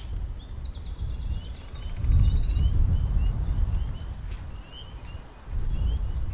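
Small birds chirping outdoors: a run of short, rising chirps, with two brief buzzy trills in the first few seconds. Underneath is a low rumbling noise on the microphone that swells about two seconds in and again near the end.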